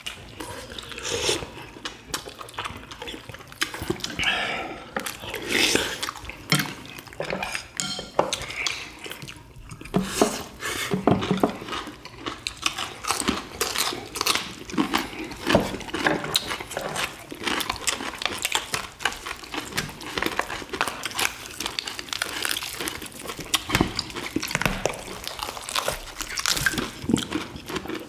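Mukbang eating sounds: chewing, with chopsticks and spoons clicking against bowls and a metal platter, while a whole boiled chicken is pulled apart by gloved hands. The clicks and knocks come irregularly, many to the second.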